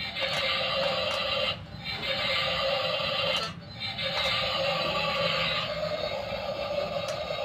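Music, the same piece that runs on either side, broken by two short pauses, about a second and a half and three and a half seconds in.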